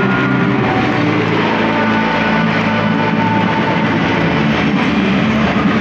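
Large stadium crowd making a loud, dense, continuous noise, with music playing over the stadium's public-address system.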